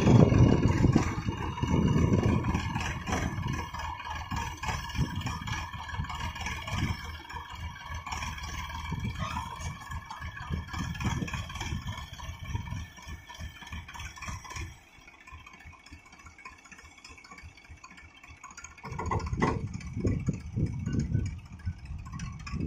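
Massey Ferguson 7250 DI tractor's three-cylinder diesel engine running while its hydraulics tip a loaded sand trailer. It is loudest at the start, eases down, drops much quieter about 15 seconds in and picks up again about 19 seconds in.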